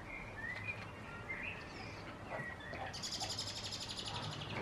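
Small songbirds chirping, then a fast, high trill starting about three seconds in that stops abruptly near the end.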